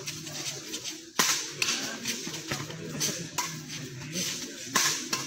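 Badminton rackets striking a shuttlecock during a doubles rally: a series of sharp cracking hits about a second apart, the loudest about a second in.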